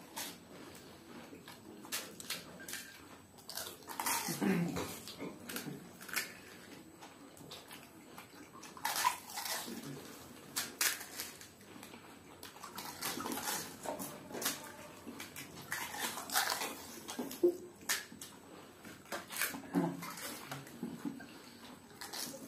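Hurried eating of pani puri: the crisp puris crunching and the spiced water slurped, with irregular chewing and mouth noises and scattered sharp crackles.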